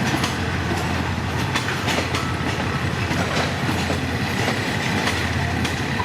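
A train rolling past, its wheels clacking over the rail joints with a steady low engine rumble underneath and a faint thin squeal from the wheels.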